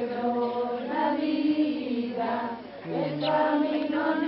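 A group of voices, mostly women's, singing a slow chant together, with notes held for about a second before moving to the next.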